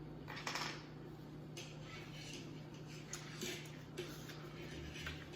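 Faint mouth sounds of someone chewing and eating: a scatter of short, soft clicks and smacks, over a low steady hum.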